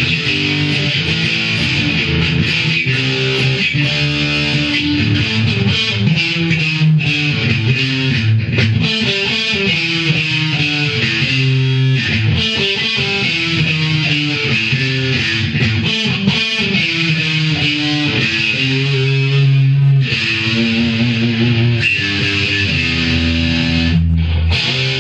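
Mexican-made Fender Stratocaster electric guitar played through distortion: a continuous stretch of riffs and held notes, the pitch stepping from note to note.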